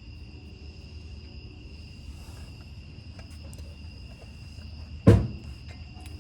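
Crickets chirring steadily in two high, unbroken tones, with a few faint clicks and one sharp knock about five seconds in.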